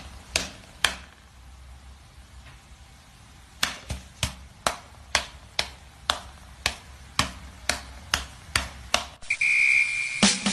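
A series of sharp taps or knocks: three at the start, then about a dozen more at roughly two a second. Near the end comes a short steady high beep.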